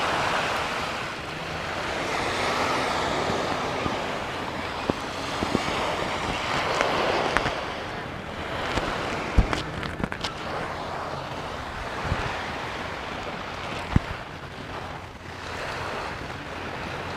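Sea surf washing onto a sandy beach, swelling and fading every few seconds, with a few short sharp knocks, the loudest about nine and fourteen seconds in.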